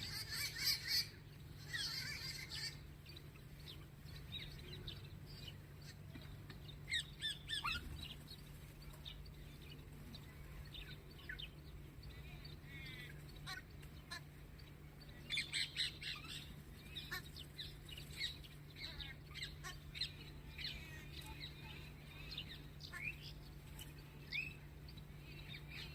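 Small birds chirping in quick, irregular bursts, with the busiest flurries near the start, about seven seconds in and around fifteen seconds in, over a steady low hum.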